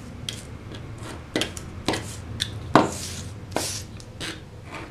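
Several sharp, separate clicks at uneven intervals as a piece is trimmed flush with a cutting blade at the worktable, the loudest a little past the middle.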